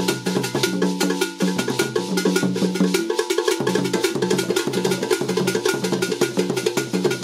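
Traditional Ghanaian hand drums played in a fast, steady dance rhythm, with a high metal bell ringing along with them.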